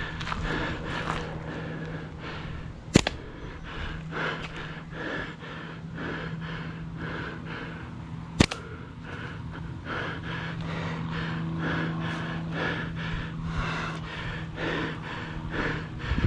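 A slingshot with flat rubber bands shot twice, each release a single sharp snap, about five seconds apart. A steady low hum runs underneath.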